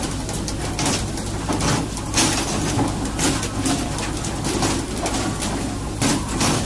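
A fishing boat's engine running steadily, with repeated rushes and splashes of water along the hull as tuna are hauled out on poles.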